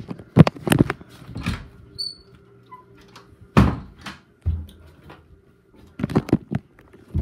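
Knocks and bumps of closet and cupboard doors and household things being handled: several sharp knocks with quiet gaps between, mixed with the rubbing of a phone being carried and moved about.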